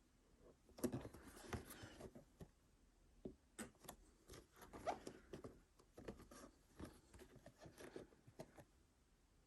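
Packaging being handled and opened: quiet rustling, scraping and small clicks.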